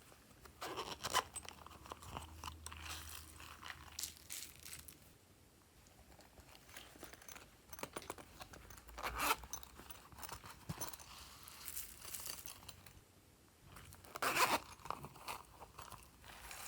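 Hands kneading and pressing slime, with irregular crunchy crackles and a few louder squelching crunches.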